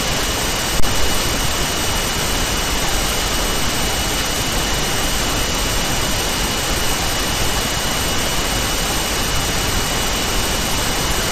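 Steady, even hiss like static, with a faint thin high whine running through it and a single click about a second in.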